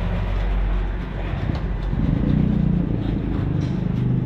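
A low, steady motor drone that swells a little about halfway through.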